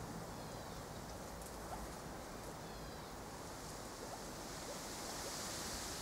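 Steady rushing of wind through trees, getting a little louder near the end, with a few faint, distant bird chirps.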